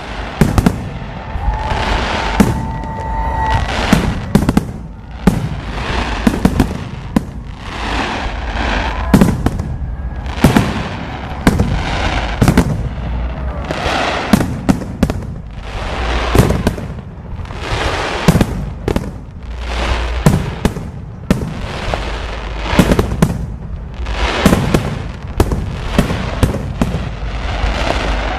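Aerial fireworks going off in a dense, continuous barrage of bangs and crackles, several a second, over a steady low rumble, with a brief whistle about two seconds in.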